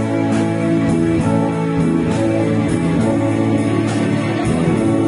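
A live church band plays a hymn on electric guitar and drum kit, with sustained chords over drum and cymbal strikes about twice a second.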